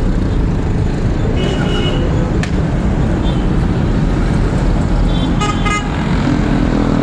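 Steady road-traffic rumble with two short car horn toots, one about a second and a half in and a louder one near six seconds.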